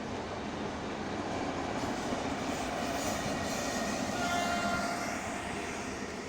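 A train passing by: a continuous rushing rumble that swells to its loudest about four seconds in and then eases, with a brief pitched tone at the loudest point.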